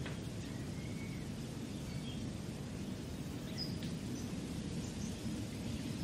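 Small-town park ambience: a steady low rumble with scattered faint bird chirps.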